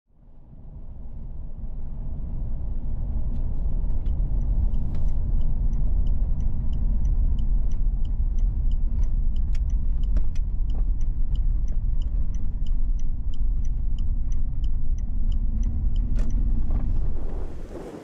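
Engine and road noise inside the cab of a 2011 Chevrolet Silverado 1500 with a 5.3-litre V8 as it drives, fading in at the start. A turn signal ticks steadily about two and a half times a second through the middle and stops shortly before the end.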